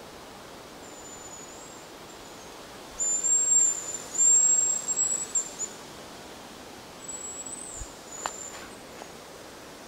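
Hazel grouse whistle calls: very high, thin drawn-out whistles. A faint one comes about a second in, then two loud ones around the middle, then two fainter ones near the end. A single light click sounds among the last whistles.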